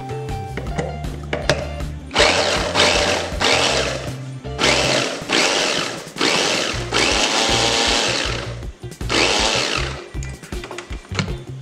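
Inalsa Bullet 400-watt electric mini chopper run in short pulses, about eight bursts from about two seconds in until near the end, its motor and twin blades whirring as they chop green chillies.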